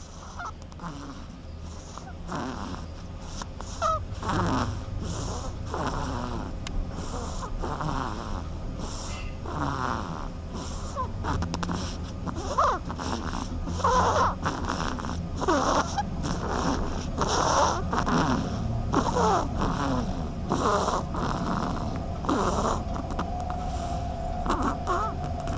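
A sleeping duckling snoring: quick, regular wheezy breaths, a little under one a second, with short squeaky notes mixed in.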